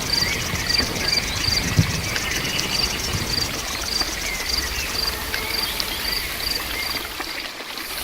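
Steady rain falling, with crickets chirping in short, regular high pulses about twice a second.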